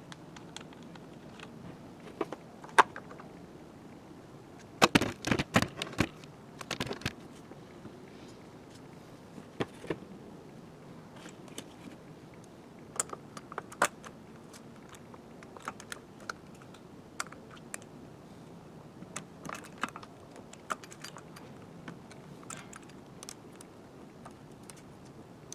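Scattered clicks and clinks of small metal and plastic parts, from the cover nuts, the plastic clutch cover and the bar and chain of an Echo CS-310 chainsaw being taken apart and fitted. A quick run of rattling knocks comes about five seconds in.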